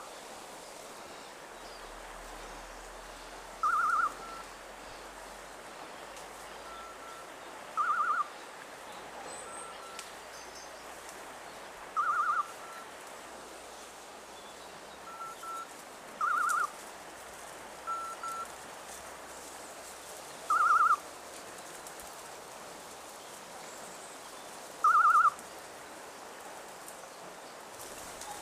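Hunting dog's beeper collar in point mode: a short warbling beep about every four seconds, with fainter short pips in between. It signals that the dog is holding a point.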